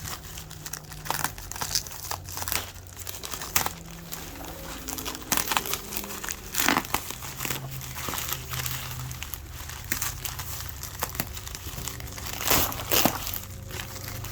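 Plastic bubble wrap crinkling and crackling in irregular handfuls as packages are unwrapped, over a low steady hum of passing traffic.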